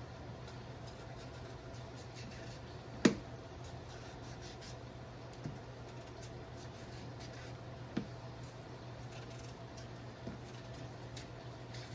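Knife peeling the skin off a cucumber: faint, repeated scraping strokes. One sharp knock about three seconds in and a few lighter taps later.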